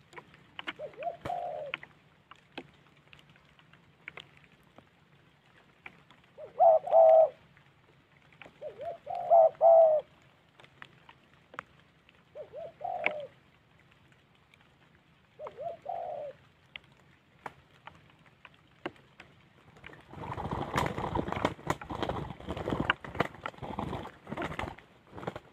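Spotted doves cooing: five separate coo phrases, each about a second long. About twenty seconds in comes a flurry of wing flaps and scuffling that lasts a few seconds as a dove flies up.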